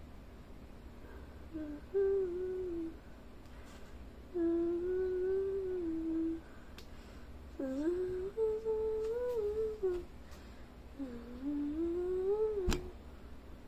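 A person humming a tune softly in four short phrases, the pitch wavering up and down. A single sharp click sounds near the end.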